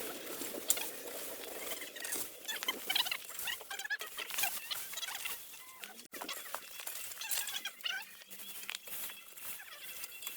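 Irregular light tapping and rustling, mixed with short chirping calls.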